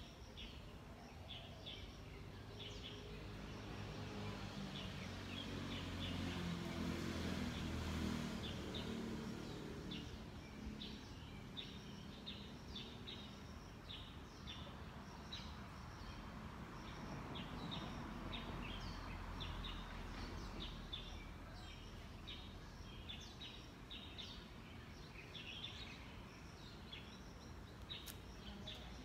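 Birds chirping in short, repeated calls over faint outdoor background noise. A passing vehicle's low rumble swells to a peak about eight seconds in and fades away.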